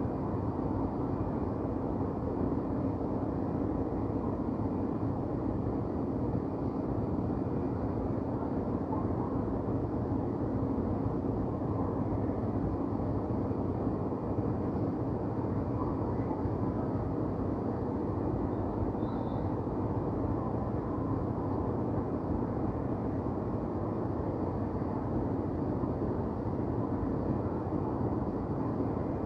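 Steady low rumble of downtown city ambience: distant traffic blended with a constant mechanical hum, with no distinct nearby events.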